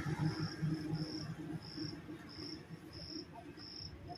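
An insect chirping in an even rhythm, a short high chirp about every two-thirds of a second, over a faint low hum that fades away in the first couple of seconds.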